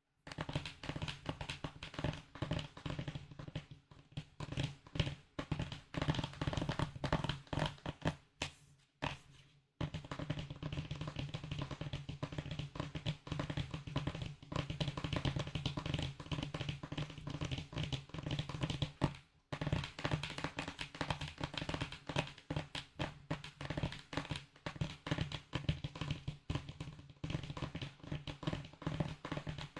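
Rapid, dense tapping on a small object as an ASMR trigger, pausing briefly about nine and nineteen seconds in.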